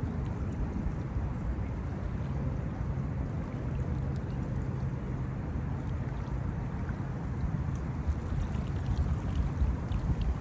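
Steady low rumble of wind on the microphone, gusting a little harder near the end.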